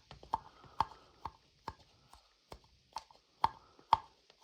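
A scoop scraping and knocking against the ridged inside of a 3D-printed shaving bowl as soft shave soap is pushed into the ridges: sharp clicks about two a second, with a short pause near the middle and light scraping between them.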